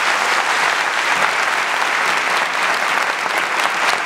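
A large seated audience in a full hall applauding steadily, a dense sustained patter of many hands clapping.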